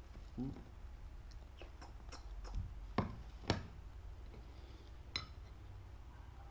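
A corgi crunching crispy fried sweet potato slices: a handful of sharp, crisp snaps, the two loudest about three seconds in, half a second apart, and one more near the end.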